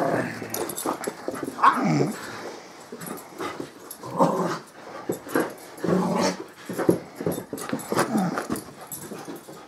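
Beagle vocalizing in play, a string of short growls and yips coming in irregular bursts about every second, while it roughhouses with a person.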